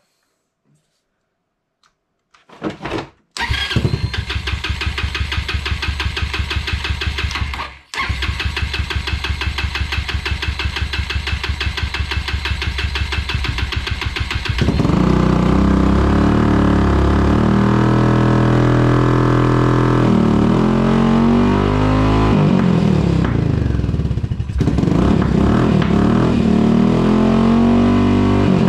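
Honda Fusion scooter's 250 cc single-cylinder four-stroke engine cranked on its electric starter, in two runs with a short break about eight seconds in. It fires about fifteen seconds in and keeps running, its speed rising and falling, through an aftermarket Supertrapp muffler. It is the engine's first start after ten years in storage, following a carburettor cleaning.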